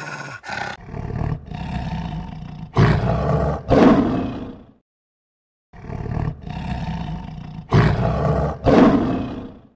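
Lion roaring: a run of grunting calls builds to two loud roars that trail off and fall in pitch. The same roaring sequence plays twice, with about a second of silence between.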